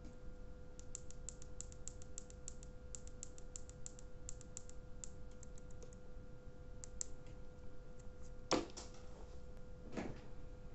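Quick run of small clicks from the tactile buttons on a vape mod's mainboard, pressed over and over to step a menu setting up, a few more clicks a little later, then two louder handling knocks near the end.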